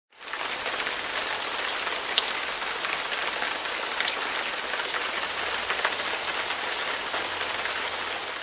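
Steady rain falling on a surface, with scattered sharp ticks of individual drops.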